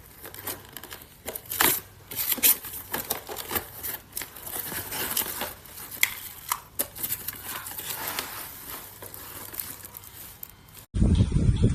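Plastic packaging being crinkled and torn while a keyboard-and-mouse set is handled, with irregular rustles and small clicks. Near the end the sound cuts abruptly to a louder, duller rumbling noise.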